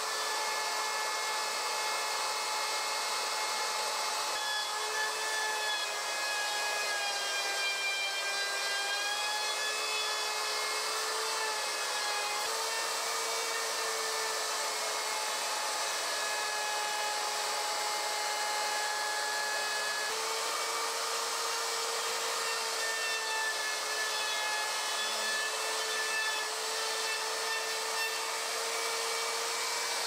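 Ryobi trim router running steadily as it cuts wood, a constant whine that sags slightly in pitch whenever the bit takes a heavier cut.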